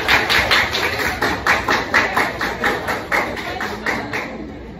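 A class clapping in unison, a steady rhythm of about five claps a second that dies away about four seconds in.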